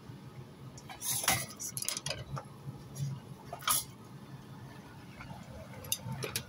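Metal clinking and clattering against a stainless steel perforated colander as fried chicken pieces are moved about in it. The clinks come irregularly, loudest about a second in and again just before four seconds in.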